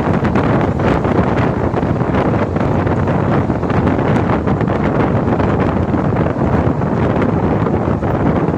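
Express passenger train running through a station at speed, heard from its own open door or window: a steady rush of wind buffeting the microphone over the rumble of the wheels on the rails.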